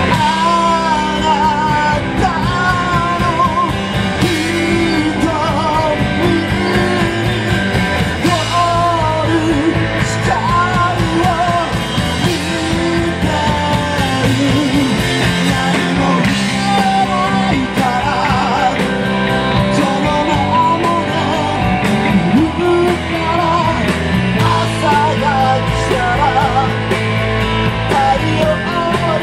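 Live rock band playing loudly, with drums, electric bass and a singing voice.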